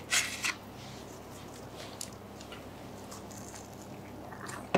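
A bite into a fried samosa with a short crisp crunch of pastry, then quiet chewing with faint scattered mouth clicks.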